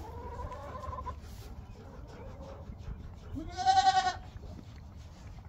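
Goats bleating: a faint, slightly rising call at the start, then one loud bleat about three and a half seconds in.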